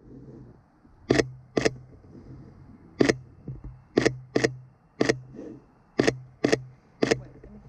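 Sony A7 III camera shutter firing: about nine sharp clicks, singly and in quick pairs about half a second apart, with a few fainter clicks between them.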